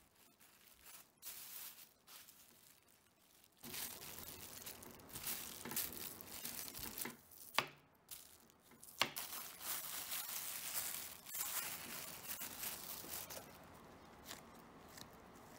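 Plastic bag crinkling and rustling as a sticky oat-and-date dough is pressed flat and cut through the plastic with a kitchen knife, the rustling growing louder a few seconds in. Two sharp knocks of the blade against the wooden cutting board come about a second and a half apart past the middle.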